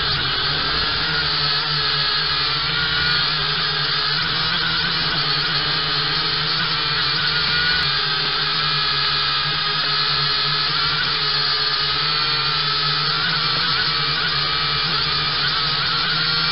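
Potensic F183DH quadcopter's motors and propellers whining steadily, heard through its own onboard camera, with several high pitches wavering slightly up and down.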